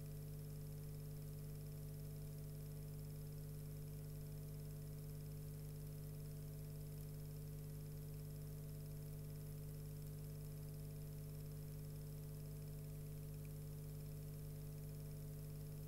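Steady electrical hum with a faint hiss, unchanging throughout; no sound of the fire or the fire engine is heard.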